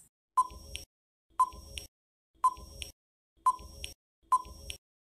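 Quiz countdown timer sound effect: five short beeps, about one a second.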